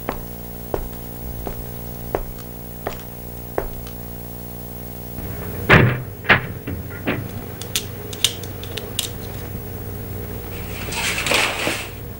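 Footsteps on a hard floor, about one and a half a second, over a steady low hum. About six seconds in, a door handle and latch clatter with a few loud knocks as a door is worked open, followed by some lighter clicks and a brief scraping rustle near the end.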